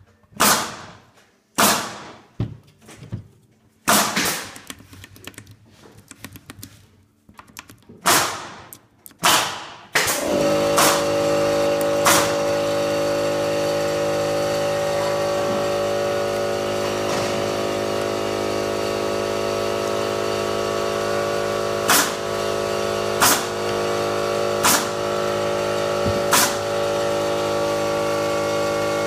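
Four sharp cracks over a quiet background. About ten seconds in, a machine motor starts and runs with a steady hum, with a few sharp clicks over it.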